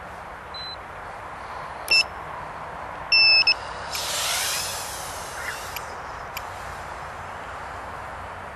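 Short electronic beeps: a faint one, a loud beep about two seconds in, and a quick double beep a second later. They are followed by a brief rising whine and rush from a micro FPV drone's tiny motors spinning up, which fades after about a second and a half over a steady hiss.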